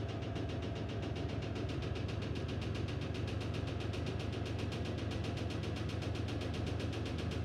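Electrolux Ecologic LEC12 12 kg washing machine running: a steady motor hum with a fast, even pulsing.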